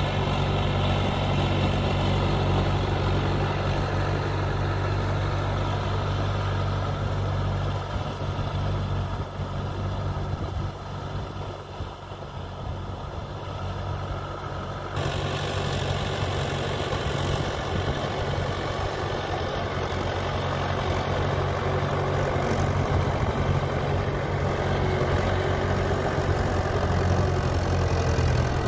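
Mahindra 575 DI tractor's four-cylinder diesel engine running steadily under load as it drives its cage wheels through a flooded paddy field. The engine hum fades somewhat in the middle, changes abruptly about halfway through, then grows louder near the end as the tractor comes closer.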